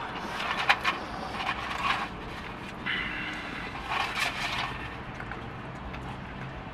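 Scraping and rustling as a takeout food bowl is handled and dug into, in several short spells over the first five seconds, over a steady low hum.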